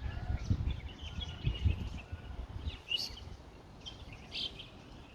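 Birds chirping in short scattered calls, with wind buffeting the microphone as a low rumble over the first couple of seconds.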